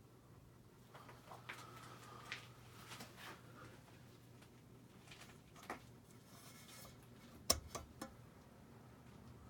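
Hunter Low Profile II ceiling fan running, with a faint steady motor hum under a scattering of irregular clicks and taps, the loudest a close pair of clicks about seven and a half seconds in.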